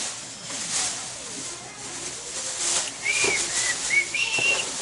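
About four short whistled notes near the end, over a steady hiss like a pan sizzling on the stove. A chef's knife taps faintly on a plastic cutting board as garlic is chopped.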